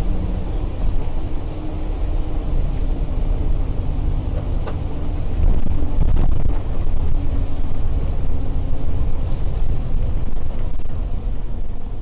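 Car driving along a road, heard from inside the cabin: a steady low rumble of road and engine noise, with a couple of faint clicks around five and six seconds in.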